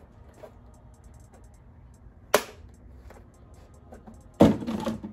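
Two sharp knocks about two seconds apart, the second louder and followed by a brief clatter: empty plastic motor-oil quart bottles being handled while an engine is filled with oil.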